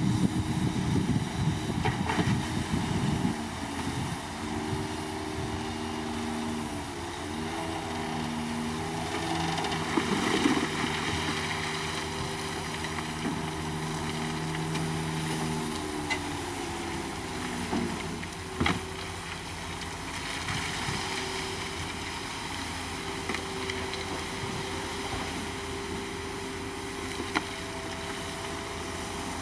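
Komatsu D53 bulldozer's diesel engine running under work, its pitch dipping and rising several times as the load changes. Loud rattling for the first few seconds, and a single sharp knock about two-thirds of the way through.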